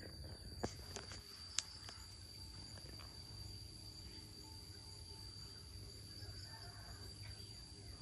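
Steady high-pitched chirring of insects, with two sharp clicks about a second apart near the start.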